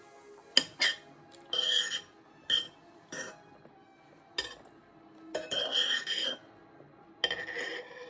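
Cutlery clinking and scraping on dinner plates: several sharp clinks and a few short scraping strokes.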